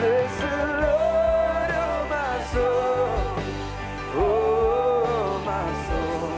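A worship song: a voice singing long, held phrases over electric guitar and steady low accompaniment.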